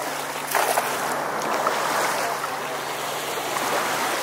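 A cast net splashing down onto shallow sea water about half a second in, followed by the steady wash of small, calm waves.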